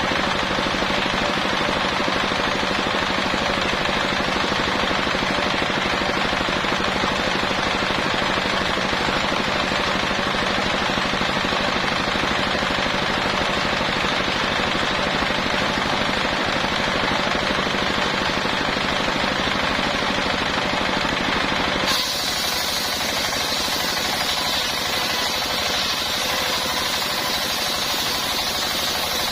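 Circular sawmill cutting a coconut-palm log, a loud continuous rattling machine noise. About 22 s in, the sound changes abruptly to a brighter, slightly quieter running.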